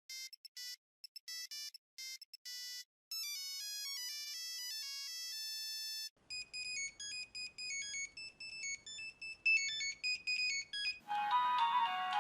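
A run of mobile phone ringtones cut one into the next. First comes a pattern of short electronic beeps, then from about three seconds in a simple single-note melody. From about six seconds another quick electronic tune plays, and near the end a fuller polyphonic ringtone melody comes in.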